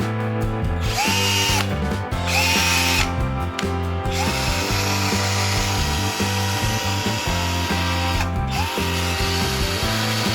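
BFL 18V cordless hammer drill triggered four times, the motor spinning up with a rising whine each time and then running steadily; the third run is the longest, about four seconds. Background music plays underneath.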